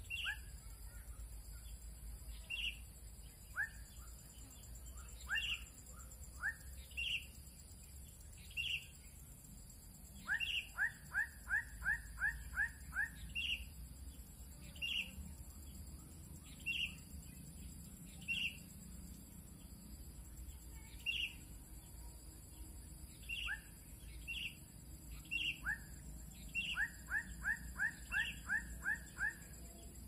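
Bird calls: short high chirps repeating every second or two, twice breaking into a quick run of about eight rising notes.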